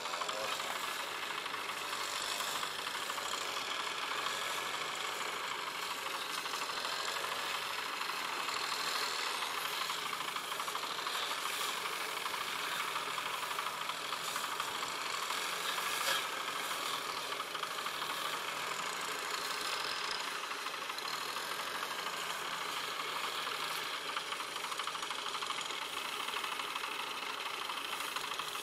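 Farm tractor's diesel engine running steadily, with a single short knock about halfway through.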